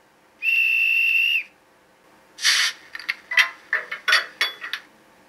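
Sound effects from the ESU digital sound decoder of an HO-scale BR 232 'Ludmilla' diesel locomotive model: a steady high whistle about a second long, then a quick run of metallic clinks and clanks.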